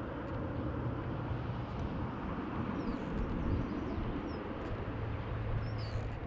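Steady outdoor rumble and hiss with a low steady hum underneath, and a few faint short high chirps about halfway through and again near the end.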